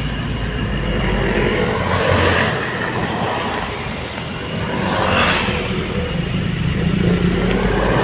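A moving vehicle's engine and road noise heard from inside, a steady low rumble, with two swells of rushing noise about two and five seconds in.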